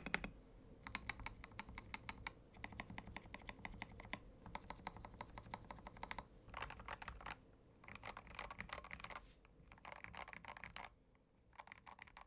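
Typing on a Tester68 mechanical keyboard with linear Gateron Milky Yellow Pro switches and PBT keycaps. Quick runs of keystrokes come in bursts of a second or two with short pauses between them.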